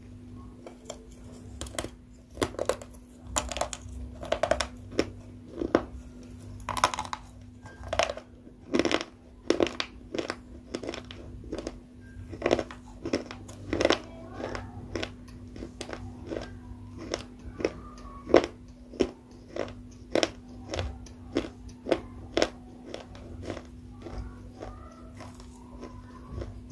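Close-up crunchy chewing: sharp crunches about twice a second, over a steady low hum.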